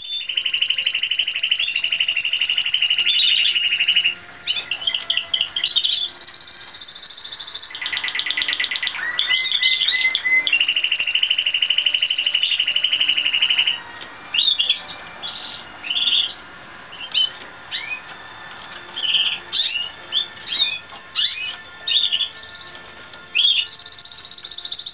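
Timbrado Español canary singing: long, fast, even trills held for several seconds, then a run of short separate notes and chirps from about halfway through.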